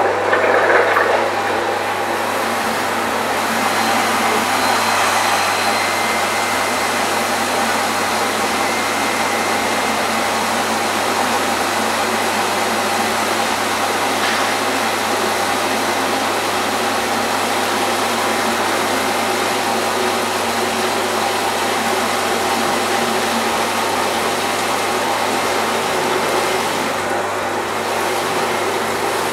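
Steady hiss of water jets spraying under about 8 bar pressure from several holes drilled in a test pipe, with a low hum underneath. The leaks are still open while leak-repair chemical is pumped through the line.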